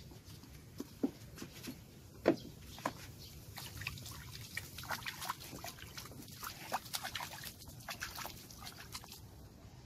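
Water splashing and sloshing in a small bucket as a hand works in it, a quick irregular run of short splashes, gurgles and drips, the loudest about two seconds in.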